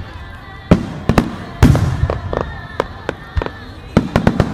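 Aerial fireworks shells bursting in quick succession, sharp bangs with a low rumble trailing after each. The heaviest boom comes about one and a half seconds in, and a tight cluster of bangs near the end.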